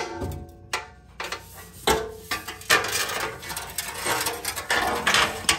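A car's underbody skid plate being worked loose and pulled down: a few sharp knocks and clinks, then a couple of seconds of scraping and rattling as the panel drags free.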